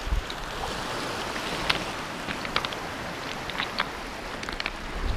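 Small lake waves washing onto a shore of flat shale stones: a steady rush of water, with scattered light clicks.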